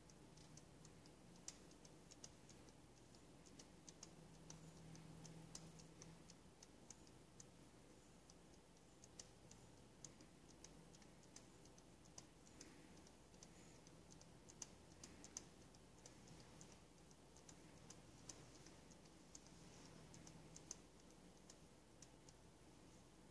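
Near silence: faint room tone with a low hum and scattered light ticks and clicks.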